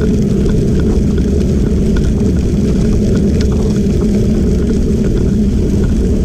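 Steady low rumble of wind buffeting a moving camera microphone and tyres rolling over a crushed-gravel trail, with scattered small ticks of gravel.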